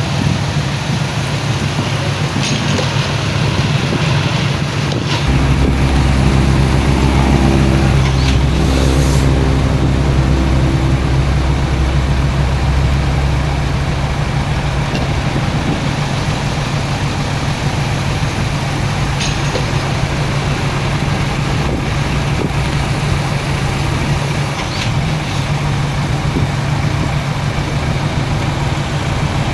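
Heavy diesel earthmoving machinery running steadily. About five seconds in, a deeper, heavier engine note joins for several seconds, with a few scattered clanks.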